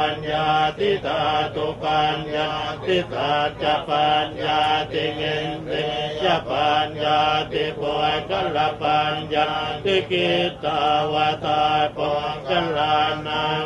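A group of Theravada Buddhist monks chanting Pali verses in unison. The recitation is quick and even, syllable after syllable on a nearly level pitch.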